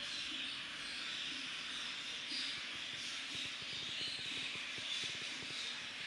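Budgerigars chattering: a steady, dense twitter of many small chirps.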